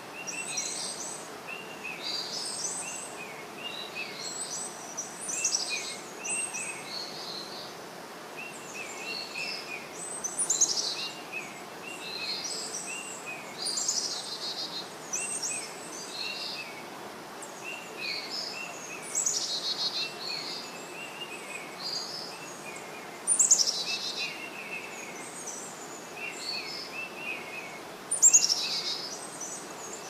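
Several songbirds calling over a steady background hiss: a run of short, repeated chirps keeps going throughout, with higher calls above it. A few louder calls sweep downward in pitch, the loudest about ten, twenty-three and twenty-eight seconds in.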